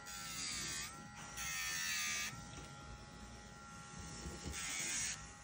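Dremel-style rotary nail grinder running with a steady whine while it grinds a bullmastiff puppy's toenail in three short passes; each pass adds a hissing grind, and the motor's pitch dips slightly under the load.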